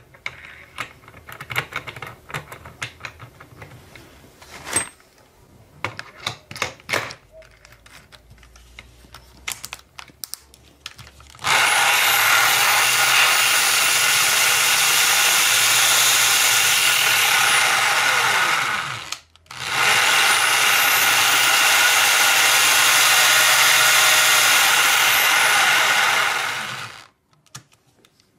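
A few light metal clicks and knocks as parts are fitted onto the shaft. Then a power drill chucked onto the steel shaft of a geared assembly in a vise runs at speed for about seven seconds, stops briefly, and runs again for about seven seconds before cutting off.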